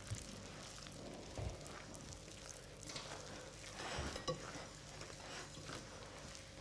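Hands rubbing flour and melted smen together in a glass mixing bowl: a faint, crumbly rustling, with a few soft knocks against the bowl.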